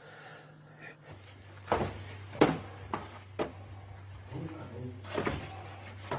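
Footsteps knocking on the stone floor of a narrow underground quarry tunnel, several steps about half a second apart, over a steady low hum that starts about a second in.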